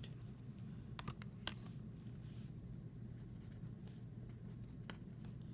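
Faint scratching of handwriting, a few short strokes about a second in and again near the end, over a low steady hum.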